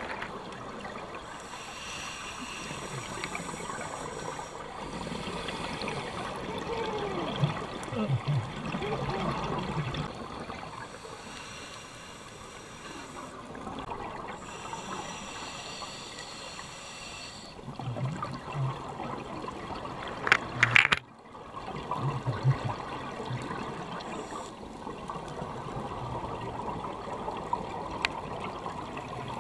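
Scuba regulator breathing recorded underwater: three hissing inhalations of a few seconds each, with gurgling bursts of exhaled bubbles in between. A short, loud knocking rattle about twenty seconds in.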